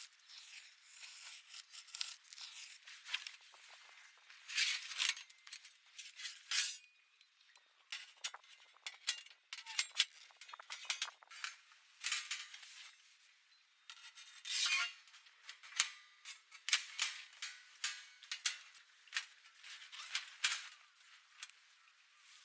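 Camp cooking gear being handled: a string of light clicks, taps and clinks of utensils and cookware, with a few longer scrapes.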